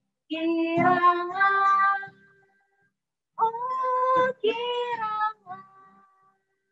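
A woman and a girl singing an Indonesian children's worship song without accompaniment, in two phrases with about a second's pause between them.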